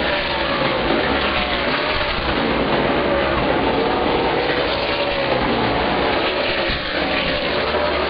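Several Outlaw Super Late Model stock cars' V8 engines running together on the track, their pitch rising and falling as the cars pass.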